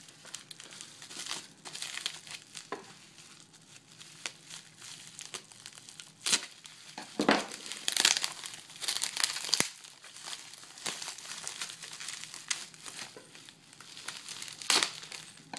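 Plastic bubble wrap crinkling and rustling as it is handled and pulled off a folding knife, with irregular sharp crackles, busiest and loudest in the middle.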